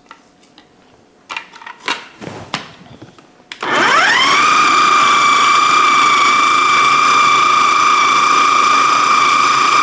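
A few light handling knocks, then about three and a half seconds in a food processor's motor starts, its whine rising quickly to a steady high pitch as it runs on, pureeing the marinade ingredients to a paste.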